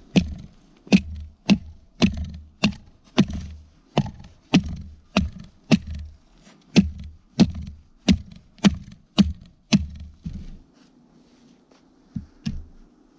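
Fire axe chopping into a frozen spruce log: a steady run of sharp blows, a little under two a second, for about ten seconds, then a short pause and two more blows near the end.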